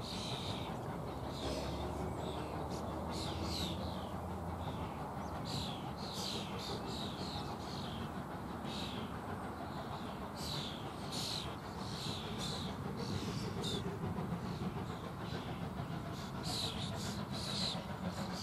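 Low, steady rumble of a distant steam locomotive working toward the lineside, with small birds singing short, high, falling notes over it again and again.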